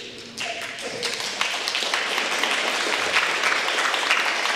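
Crowd applauding: the clapping starts about half a second in and swells to a steady level by about a second and a half.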